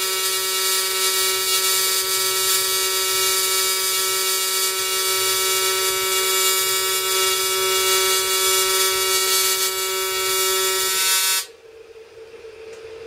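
AC TIG welding arc from an Everlast 210EXT on thin aluminium, set to the triangular waveform, buzzing with a steady, even tone. The arc cuts off suddenly about eleven seconds in, leaving a faint hum.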